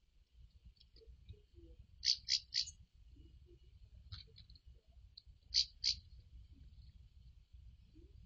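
A bird calling in short, sharp, high notes: a quick run of three about two seconds in and a pair near six seconds, over a faint steady high hum.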